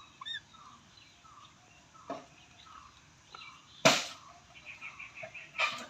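Short bird chirps and a quick pitched call, with a run of rapid chirps about five seconds in. A sharp loud snap about four seconds in is the loudest sound, and a shorter harsh burst comes near the end.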